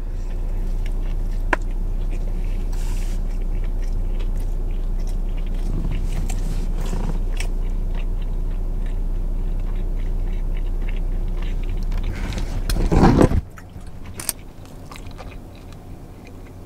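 A man biting into and chewing a bacon quarter pounder with cheese, with small wet chewing clicks over a steady low hum. About 12 to 13 seconds in there is a brief louder noise, and then the hum drops away suddenly.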